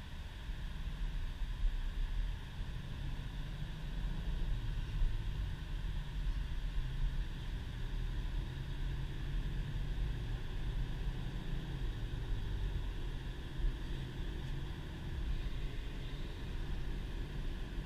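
Inside the cabin of a 2010 Subaru Impreza on the move: its flat-four engine running, with low tyre and road rumble from a snow-covered road. The rumble gets louder about half a second in and then holds steady.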